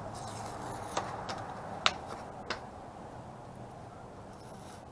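Blue masking tape being pulled off a vinyl decal on a fibreglass boat hull by hand: a few faint, short clicks and ticks, the sharpest about two seconds in, over a low steady hum.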